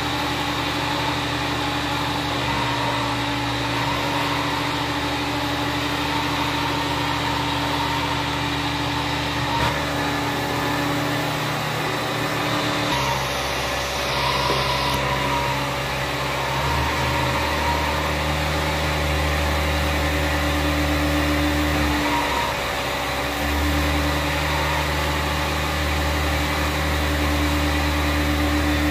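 Carpet extractor's vacuum motor running steadily as a hot-water extraction wand is drawn across an area rug, sucking the water back out of the pile. Its hum shifts in tone several times.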